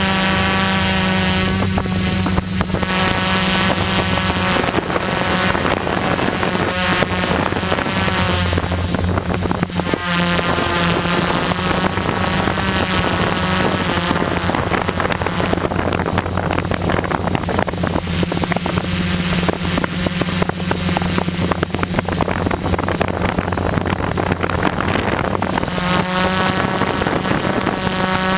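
A quadcopter's electric motors and propellers hum steadily, with a multi-toned whine that wavers in pitch as the motors change speed. A dense rushing noise fills the middle of the stretch.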